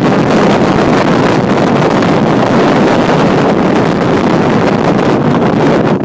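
Strong wind blowing across the microphone: a loud, steady rush of noise with no let-up.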